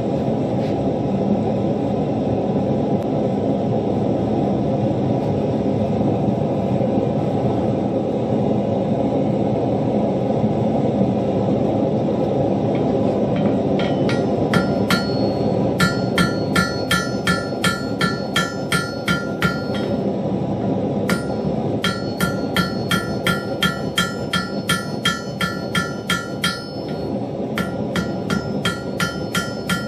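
Hand hammer striking hot steel on an anvil in runs of quick blows, about three a second, starting about halfway through with two short pauses; each blow carries the anvil's high ring. A steady rushing noise runs underneath.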